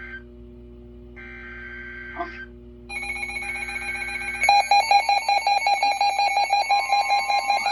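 Weather alert radio activating for a new severe thunderstorm warning: two short warbling digital data bursts of the alert header, then about three seconds in an alert tone starts, and a second and a half later the radio's loud, rapidly pulsing alarm beeps in.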